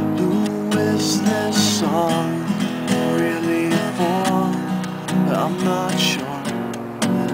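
Acoustic guitar being strummed, with a man's singing voice gliding over the chords.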